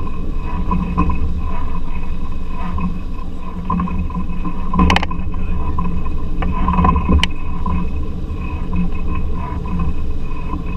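Boat engine running with a steady low rumble, with a couple of sharp knocks or splashes about five and seven seconds in.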